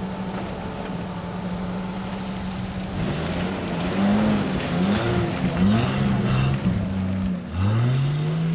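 Off-road 4x4 engine idling steadily, then from about three seconds in revving up and down repeatedly: a vehicle being driven out of the mud on a tow rope.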